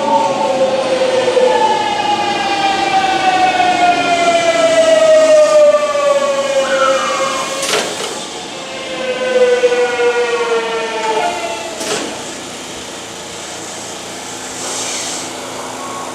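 Hitachi GTO VVVF inverter on a Tokyu Oimachi Line electric train, its whine of several tones falling steadily in pitch as the train slows under electric braking. The whine breaks off and starts again higher about a second and a half in and again about nine seconds in, and two sharp clicks sound near eight and twelve seconds in.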